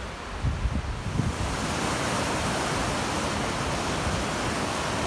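Steady rush of a river in flood, louder and brighter from about a second and a half in. Wind buffets the microphone in the first second or so.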